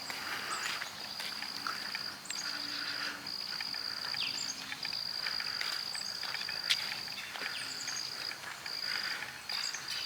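Insects trilling in a steady, high-pitched chorus that breaks off briefly every second or two, with a few short bird chirps over it.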